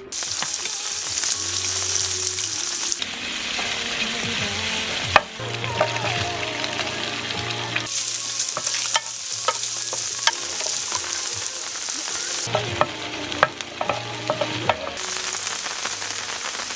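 Food frying and sizzling in a pan, with a utensil stirring and clicking against the pan. The sizzle changes level abruptly several times.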